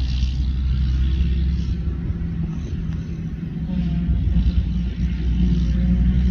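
Claas Jaguar 960 self-propelled forage harvester picking up and chopping a grass swath, engine and chopper running steadily under load, with a New Holland tractor running alongside pulling the silage trailer. A low, even drone with a hiss above it, easing a little midway and then building again.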